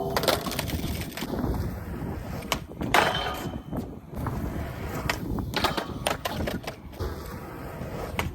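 Skateboard wheels rolling on pavement with a steady rumble, broken by sharp clacks of the board popping and landing at the start, about three seconds in, and again around six seconds.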